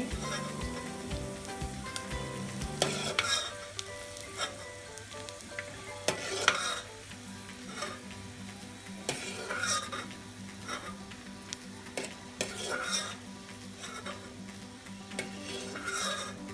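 Hot oil sizzling in an aluminium pot as roasted peanuts are scooped out with a steel ladle. The ladle scrapes and clinks against the pot and the glass bowl every second or two, loudest about three and six seconds in.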